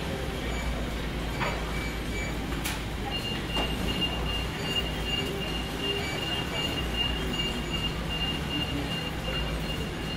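Steady low rumble of a large store's background noise, with a faint, steady high-pitched whine that comes in about three seconds in.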